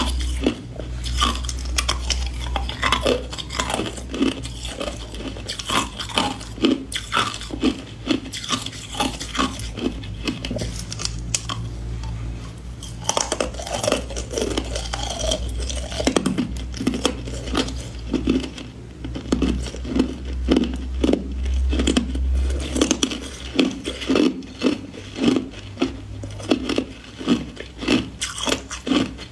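Hard ice cubes being bitten and chewed close to the microphone: dense, irregular crunches and cracks, settling in the last third into a steady chewing rhythm of about two crunches a second. A steady low hum lies underneath.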